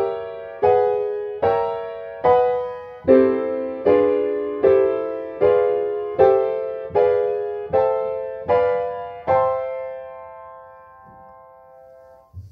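Yamaha upright piano playing the chords of a harmonised major bebop scale, one chord about every three quarters of a second at an even pace. The last chord, about nine seconds in, is left to ring and fade away.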